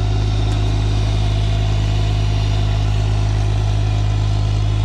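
Engine of a piece of earthmoving equipment running steadily at a constant speed, a loud low drone with no revving.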